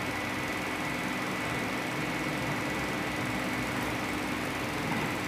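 Steady hum and hiss of a running oscillating wall-mounted electric fan, with a thin constant high whine.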